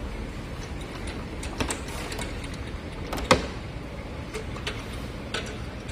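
Scattered clicks and knocks of an LED display cabinet and its modules being handled, with one sharp click a little past halfway, over a steady low rumble.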